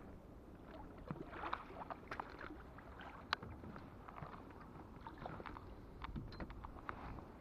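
A catfish in a landing net being lifted out of the water into a small boat: water splashing and dripping, with scattered knocks of the net frame and gear against the hull and one sharp knock about three seconds in.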